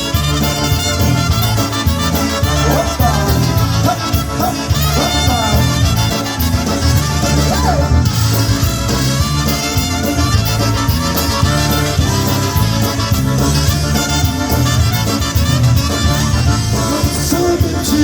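Live polka band playing the instrumental opening of a song, a bass line stepping between notes on a steady beat under the melody.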